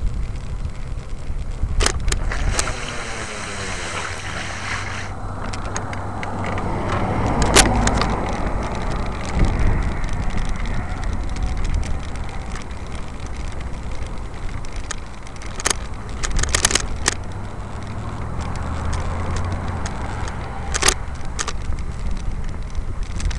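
Wind rumbling on a moving camera's microphone, with scattered sharp clicks and rattles from handling. A car passes by, loudest about seven to eight seconds in.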